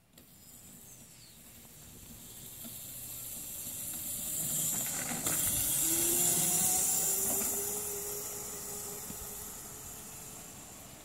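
Razor electric dirt bike riding past, its chain-driven electric motor whining over a steady hiss of chain and tyres. It grows louder to a peak about halfway through and then fades as the bike rides away.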